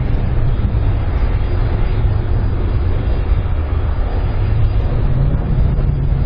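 Airbus A310 jetliner's engines running with a steady low rumble as the aircraft moves along the runway.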